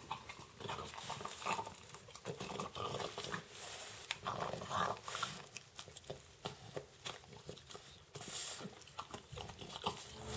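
A small dog gnawing and crunching on a piece of coconut, with a string of short, irregular crunches and clicks.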